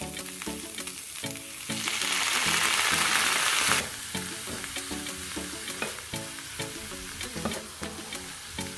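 Shredded cabbage frying in a hot nonstick pan. About two seconds in, water splashed into the pan sets off a loud hiss that lasts about two seconds and then cuts off. After that, a quieter sizzle continues under the clicks and scrapes of a wooden spatula stirring.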